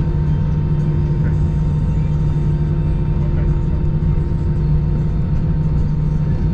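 Airbus A319 passenger cabin noise while taxiing: the engines and airframe give a steady low rumble with a steady low hum.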